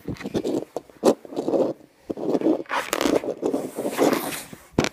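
Handling noise from a small plastic nanoblock model being turned by hand close to the microphone and against the tabletop: irregular rubbing and scraping with a few sharp clicks.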